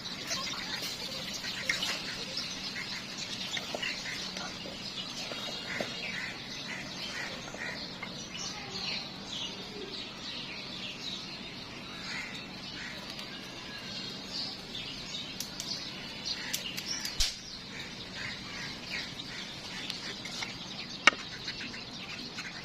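Birds chirping in many short, high calls, with a couple of sharp clicks late on.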